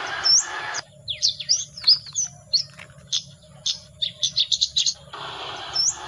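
A bird-call lure playing through a small handheld MP3 player's speaker: short rising whistled notes repeating over a hiss. About a second in this gives way to a quicker run of varied chirps and trills, and the hissy repeating call returns near the end.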